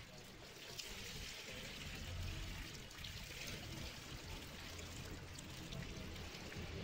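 Liquid pouring out of the cell openings of an upturned lead-acid battery in several thin streams, splashing into a pool of water below.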